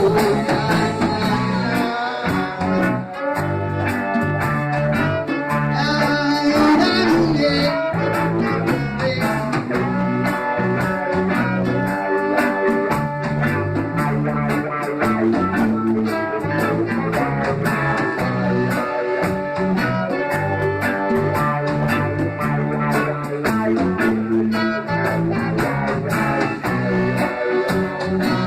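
Instrumental break in a reggae song: electric guitar and bass over a steady beat, with no singing.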